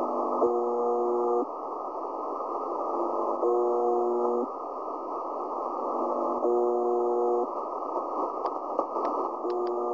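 Shortwave radio signal received in upper sideband: a one-second buzz tone repeating about every three seconds, four times, over steady static hiss. It is a buzzer-style marker signal of the UVB-76 kind.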